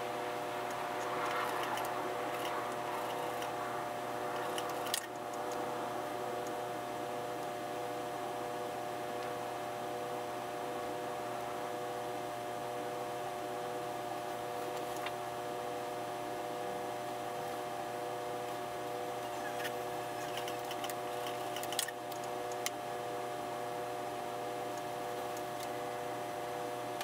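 Steady machine hum in several fixed tones, with a few faint clicks from handling, one about five seconds in and two past twenty seconds.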